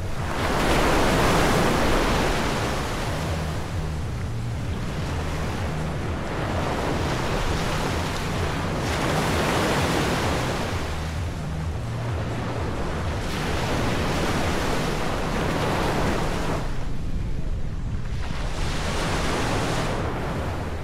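Sea waves breaking on a beach, the surf swelling and falling back about every four seconds, with wind rumbling on the microphone.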